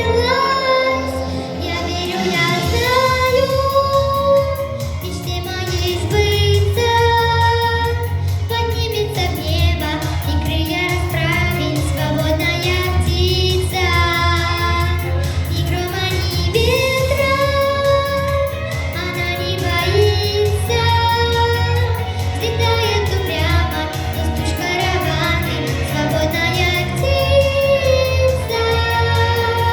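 A solo young female voice singing a song over a backing track, holding long notes with vibrato above a steady bass line.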